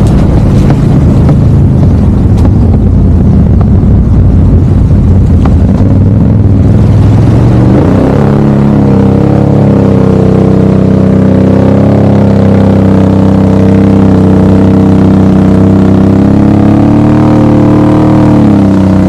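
Off-road vehicle engine running under way on a trail: rough and low for the first several seconds, then its pitch climbs about eight seconds in and holds fairly steady with small rises and falls, dipping briefly near the end.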